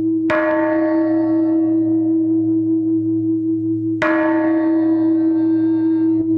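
Large Buddhist temple bell tolled at a slow, even pace: struck twice about four seconds apart, each stroke ringing out and settling into a long, steady hum that carries on under the next.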